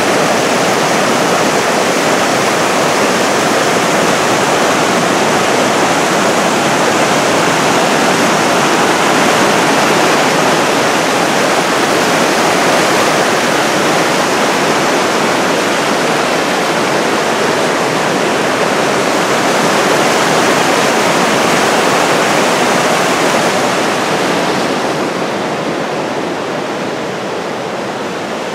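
Crystal Creek roaring as it cascades over boulders: a loud, steady rush of white water that eases a little near the end.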